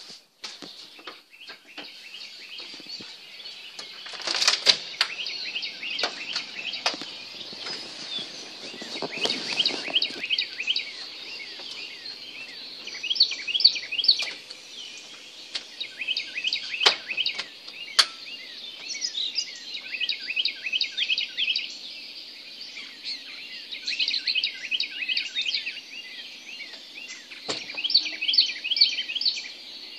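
Dawn chorus of songbirds: many short, rapid chirps repeated over and over in a dense, overlapping stream. A few brief rustling bursts and sharp knocks break in now and then.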